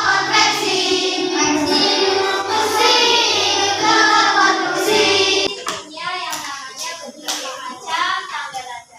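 A class of children singing together over backing music. The music stops abruptly about five and a half seconds in, and sharp hand claps and children's chatter follow.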